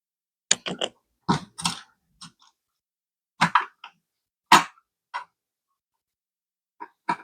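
A series of sharp clicks and clacks of hard parts being handled and fitted during a PC build, in irregular clusters with silence between, the loudest about four and a half seconds in.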